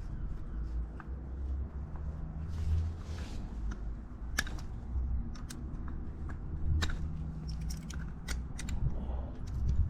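Irregular sharp metallic clicks and taps of hand tools working a stubborn pad pin out of a motorcycle's front brake caliper, over a low rumble.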